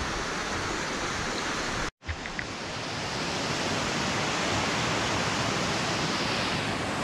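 Mountain stream rushing over rocks, a steady loud rush of water. It cuts out for an instant about two seconds in.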